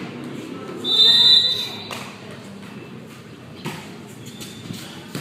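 A referee's whistle blows once, a short shrill blast about a second in, over the murmur of voices in a hall. A few scattered thuds of the ball and players' feet follow.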